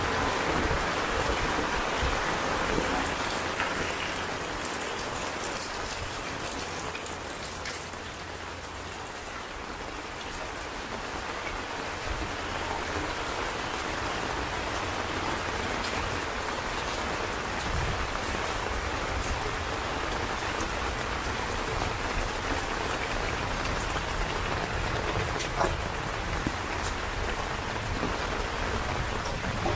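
Steady rain falling on wet concrete, with scattered sharp drips. It is heaviest in the first few seconds, eases around eight seconds in, then holds steady.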